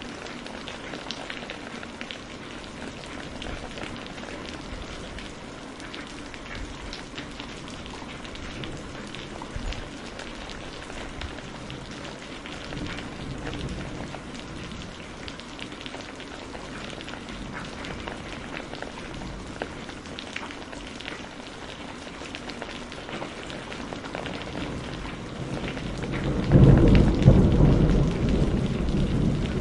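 Steady rain with many distinct drop hits, and a loud, low rumble of thunder near the end.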